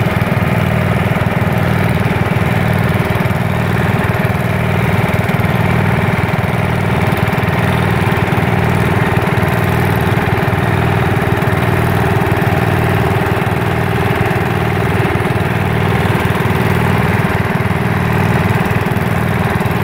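Sears Suburban Super Tandem garden tractor's engine running steadily while it pulls a plow.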